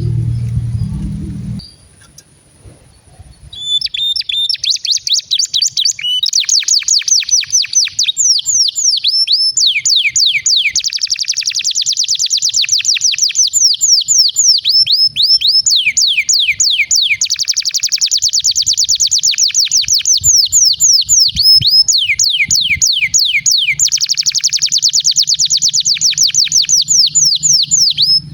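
Domestic canary singing long, fast rolling trills of rapidly repeated downward-sweeping notes, with a short break about two seconds in before the song picks up again and runs on without pause.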